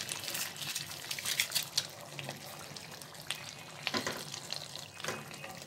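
Chicken pieces in a thick masala sizzling in a kadai while a wooden spatula stirs and scrapes through them, during the bhuna stage of frying the masala down. There are sharper scrapes about one and a half seconds in, around four seconds, and again near the end.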